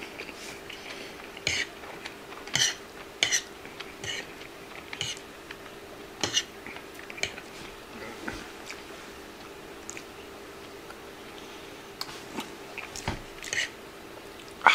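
A person eating spaghetti: scattered short slurps and chewing sounds, with a metal fork scraping and tapping on a wooden plate as the noodles are twirled.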